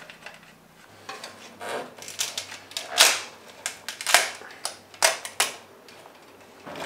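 Hands fitting a rubber support onto a Crud RoadRacer Mk3 plastic bicycle mudguard at the seat stay: a string of irregular plastic clicks and rustles. The loudest come about three and five seconds in.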